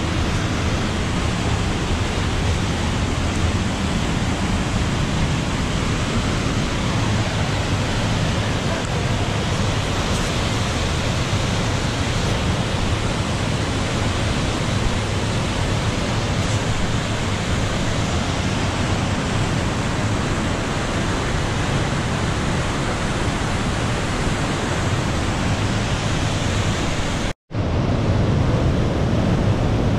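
Steady rush of a waterfall pouring out of a rock chasm into a pool: an even hiss of falling water with a deep rumble underneath. It breaks off for a split second near the end and comes back slightly louder.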